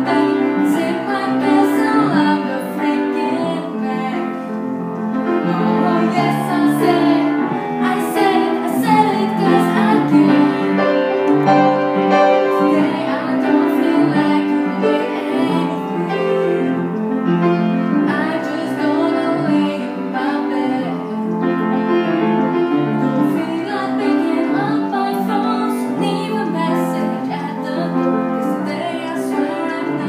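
A girl singing a song to upright piano accompaniment, the piano played steadily under a sustained, melodic vocal line.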